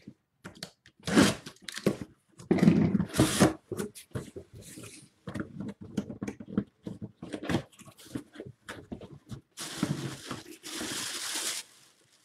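A cardboard box being opened by hand: flaps scraped and pulled apart, with a run of irregular knocks and tearing rustles. Near the end comes about two seconds of plastic wrapping being crinkled and pulled.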